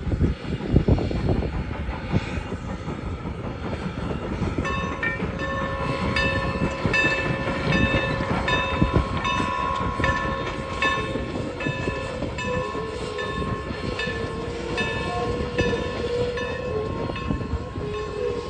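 1906 Baldwin 4-8-0 steam locomotive pulling a passenger train past, its running gear and cars rumbling. From about five seconds in, its bell rings steadily at about two strokes a second over a sustained high squeal.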